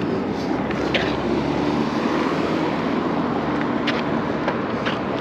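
Traffic and riding noise on a busy street from a moving e-bike: a steady rush with a low hum through the middle and a few faint clicks.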